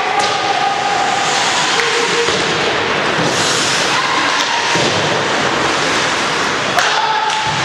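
Ice hockey game sound in an indoor rink: a steady loud din with a few sharp clacks, the loudest near the end.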